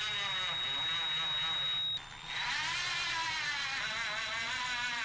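Power drill motor whining as it runs. It stops briefly about two seconds in, then spins back up with a rising pitch and keeps running with a wavering whine.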